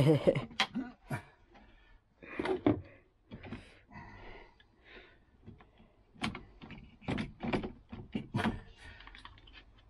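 Metal drawer runners being worked into a plywood box with a hand screwdriver: irregular clicks, knocks and scrapes of metal against wood, coming thickest in a run of knocks in the second half.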